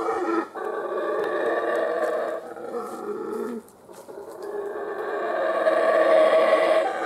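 Howler monkeys howling: long, deep, rasping calls that dip briefly a little past halfway, then swell again, loudest near the end.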